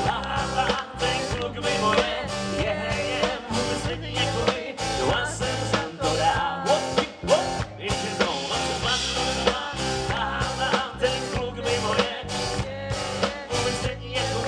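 Live band playing with a steady beat: strummed acoustic guitar, electric bass and a drum kit.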